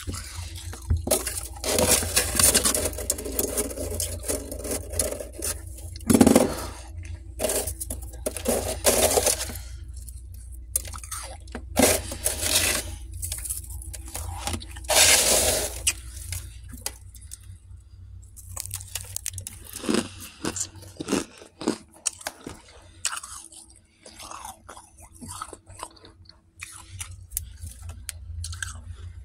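Freezer frost crunching as it is scraped loose and chewed, in irregular bursts of a second or so.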